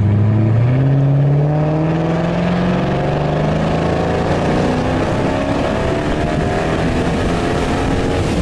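A motor vehicle's engine accelerating, its pitch rising slowly and steadily.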